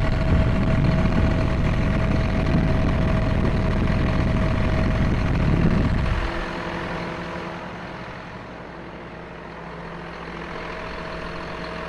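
Tractor engine running: loud and rough for the first six seconds or so, then dropping to a quieter, steady idle.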